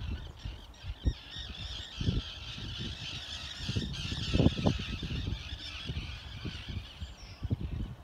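A dense chorus of waterbirds, many birds calling over one another without a break, with irregular low thumps on the microphone.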